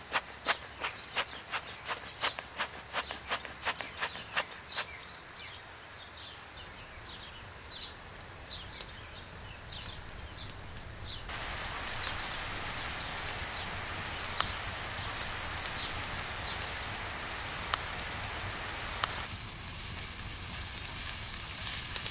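A wood fire burning under the pan, with a run of regular sharp clicks and then short falling chirps. About halfway through, minced pork and beef sizzle steadily in a hot cast iron pan over the fire.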